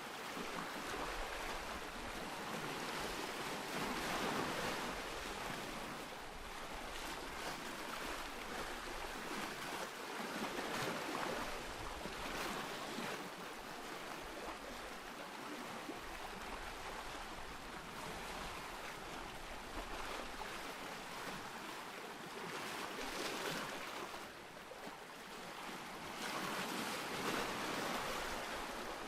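Ocean surf: waves breaking and washing in as a steady rush that swells louder and eases off every few seconds.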